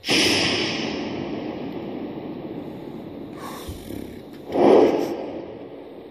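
A burst of rushing noise that starts suddenly and slowly fades, then a second swell of the same noise about four and a half seconds in, also fading away.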